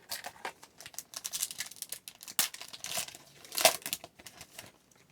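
A hockey card pack's wrapper being torn open and crinkled: a quick run of sharp crackles and rips, loudest about three and a half seconds in.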